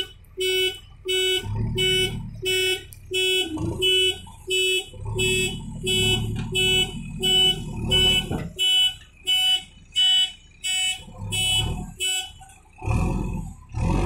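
Reversing alarm of a JCB 3DX backhoe loader beeping steadily, about one and a half beeps a second, over the machine's diesel engine, which revs up several times under load. The beeping stops about twelve seconds in, and the engine revs up louder near the end.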